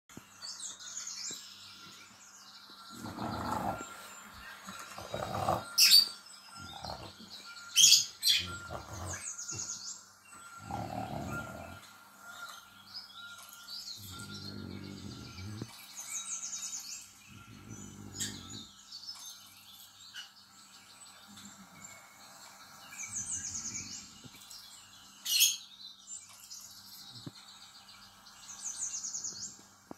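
Recorded birdsong, repeated high chirps and trills, playing from a television, with a few sharp loud knocks and several low sounds about a second long in between.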